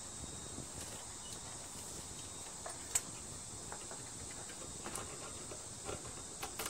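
A few light metallic clicks and taps as the small-engine carburetor and its throttle linkage are handled with pliers, over a steady high-pitched hiss.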